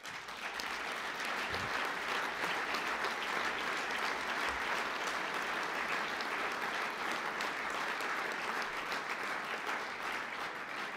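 Audience applauding: dense, steady clapping that begins suddenly and eases slightly near the end.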